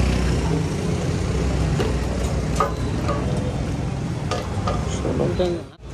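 A motor vehicle engine idles steadily through the first couple of seconds, then gives way to a noisy background with scattered clicks and knocks as a fuel pump nozzle is handled. The sound cuts off abruptly near the end.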